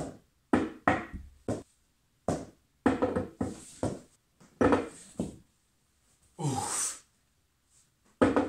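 A small ball knocking sharply and repeatedly as it is bounced and thrown, about a dozen short knocks spread through the stretch. About six and a half seconds in, a long sigh falls in pitch.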